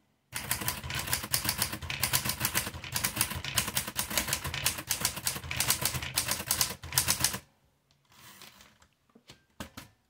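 Smith Corona Standard portable typewriter typed on at speed: a rapid, uneven run of type-bar strikes lasting about seven seconds, then it stops and a few fainter clicks follow as the carriage is returned for the next line.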